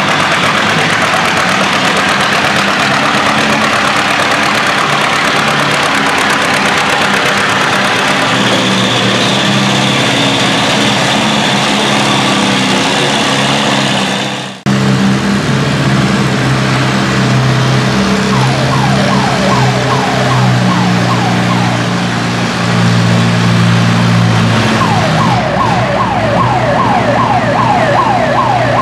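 Antique tractor engines under heavy load pulling a weight-transfer sled: first a two-cylinder John Deere, then, after a cut, an Oliver. Over the Oliver's pull a rapid squealing chirp repeats about four times a second.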